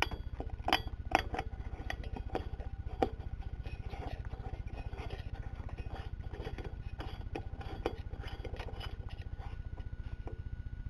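Glass 100-watt light bulb clinking and scraping against a metal lamp socket as it is screwed in by hand: a string of small sharp clicks and rattles that thins out near the end, over a steady low hum.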